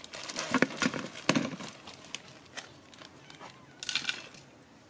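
Dry instant noodles being broken by hand, with a few sharp cracks in the first second and a half, and the plastic noodle packet crinkling about four seconds in.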